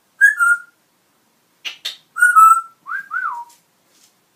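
Pet parrot whistling: a short sliding whistle near the start, then a held note and two quick rising-and-falling whistles, with a brief scratchy noise just before them.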